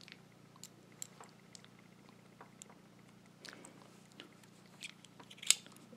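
Hands handling a small knife and a clamp piece from a knife sharpener: faint, scattered clicks and taps of small parts, with one sharper click near the end, over a low steady hum.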